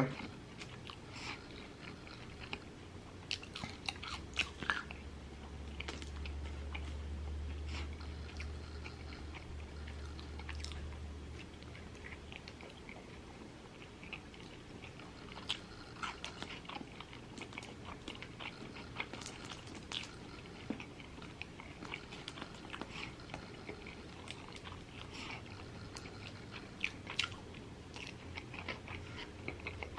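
Close-miked chewing and biting: a person eating a bacon cheeseburger and fries, with many small wet mouth clicks. A low hum sits under the chewing for several seconds near the start.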